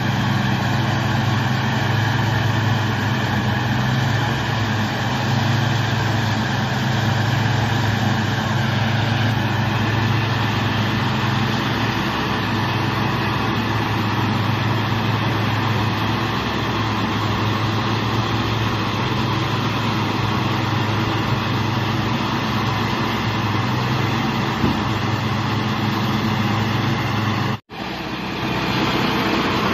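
Deutz-Fahr 100 hp tractor's diesel engine running steadily under load while driving a Maschio Extreme 266 HTI round baler in the field, the engine and baler machinery making one continuous drone. The sound drops out for a split second near the end.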